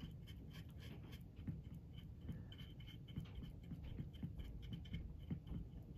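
Faint, irregular scratchy strokes of a flat paintbrush working acrylic paint onto a plastic model container.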